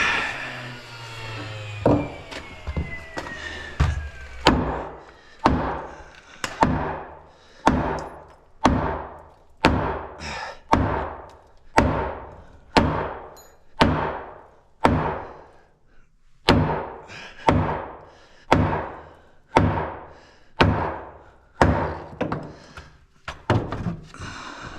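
Repeated hammer blows on 2x4 wood framing, about one strike a second, each a sharp thunk with a short ring. The piece is being knocked sideways into alignment.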